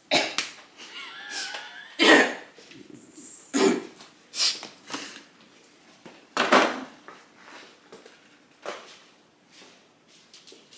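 A person coughing in short, sharp bursts, about seven times at irregular intervals, typical of throat irritation from airborne spices.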